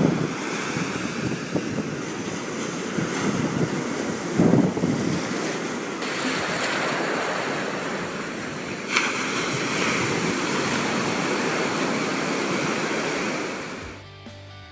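Ocean surf breaking and washing up a beach, with wind buffeting the microphone. The sound swells about four seconds in, changes abruptly about nine seconds in, and stops just before the end.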